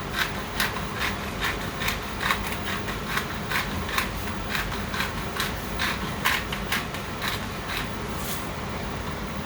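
Crushed peppercorns being shaken out of a spice container: a rhythmic rattle, about two or three shakes a second, that stops near the end.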